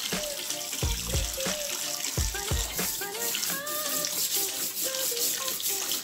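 Tap water running and splashing onto a plastic fan grille in a sink, with background music over it.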